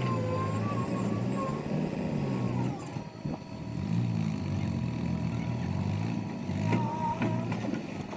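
Diesel engine of heavy machinery running, its speed rising and falling, with a brief drop about three seconds in.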